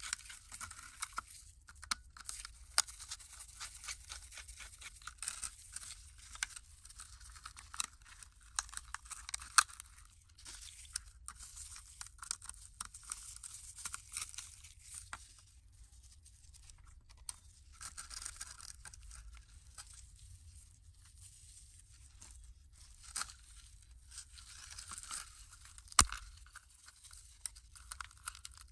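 Small screwdriver scraping and grinding as it turns tiny screws out of a grimy plastic model-car chassis, in short gritty bursts with sharp clicks among them. One loud sharp click comes near the end as parts are pulled off.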